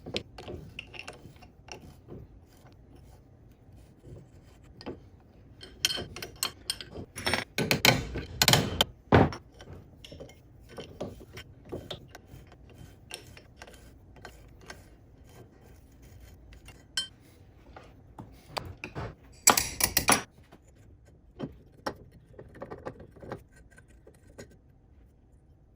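Metal parts clinking and clattering as they are handled, with scattered clicks throughout and louder bursts of rattling about six to nine seconds in and again around nineteen seconds in.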